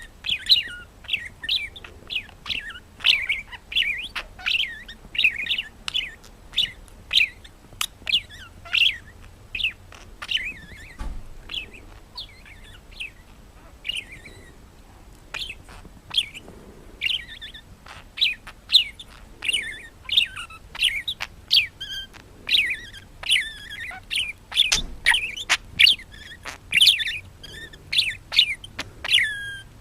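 A bird chirping over and over: short, high calls, many sliding downward, several a second, with sharp clicks among them. The calls thin out for a few seconds about halfway through.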